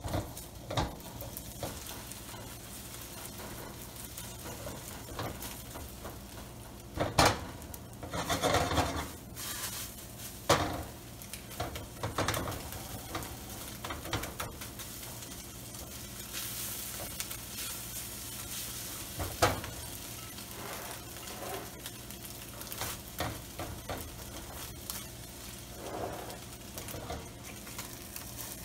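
Eggs sizzling in a hot oiled wok as they are scrambled. A spatula scrapes and knocks against the pan now and then, with sharp knocks about seven and nineteen seconds in.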